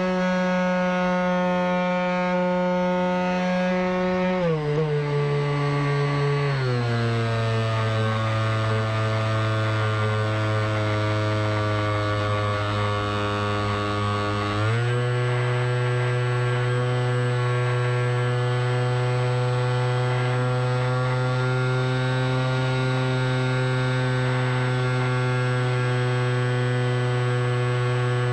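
Electric motor and propeller buzz of a camera-carrying remote-control aircraft in flight, a steady pitched hum that drops in pitch in two steps about four and six seconds in, then rises again about halfway through and holds.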